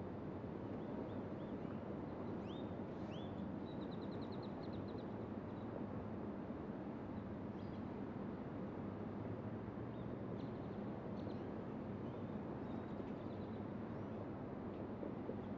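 Steady low hum of idling and passing road traffic, with small birds chirping over it: a few rising chirps and a quick trill about three to five seconds in, and more scattered chirps around ten to thirteen seconds in.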